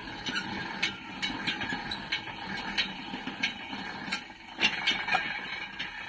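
Hand-cranked iron rubber-sheet roller turning, its rollers and gears rumbling with irregular clicks and knocks as a wet latex sheet is pressed through. A few louder knocks come near the end.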